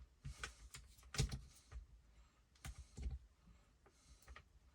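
Faint handling noises: scattered light clicks and taps with brief rustles, the loudest knock about a second in, as a strap and hand tools are moved about on a workbench.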